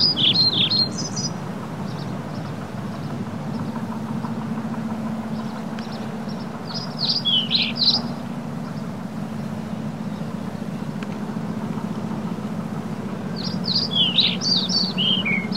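A songbird sings three short phrases of quick, falling, chirping notes, about seven seconds apart, over a steady low background rumble.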